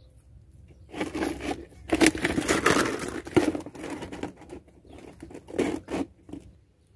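Thin plastic water-bottle container crinkling and crackling as it is gripped and shifted by hand, with irregular rustles and small knocks, starting about a second in and dying away shortly before the end.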